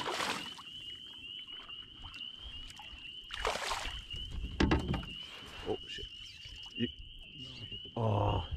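A hooked fish splashing at the surface beside a canoe: one splash right at the start and another about three and a half seconds in, followed by a few light knocks. A steady, high-pitched trill runs underneath.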